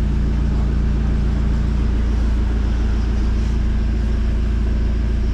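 A car's engine and road noise holding a steady low rumble and hum, with no change in speed.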